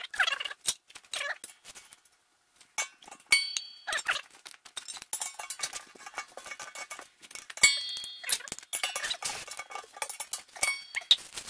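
Metal clinking and a ratchet wrench clicking in runs as a threaded adapter is screwed into the valve port of a steel 100 lb propane tank, with a couple of short metallic rings.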